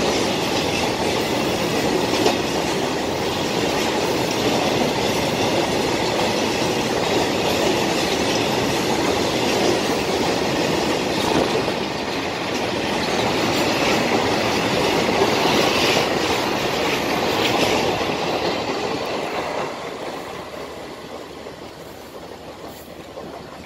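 Freight train of oil tank wagons rolling past close by: a steady rumble of wheels on rail with clickety-clack over the rail joints. It fades away over the last few seconds.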